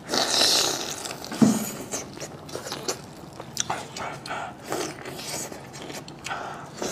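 Close-up eating sounds: biting and chewing food, with many short wet mouth clicks. A noisy burst comes in the first second, and a short low falling hum about a second and a half in.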